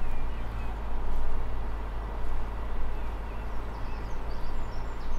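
Sailing yacht's inboard engine running at a steady speed, a low even drone, under a wash of wind and water noise.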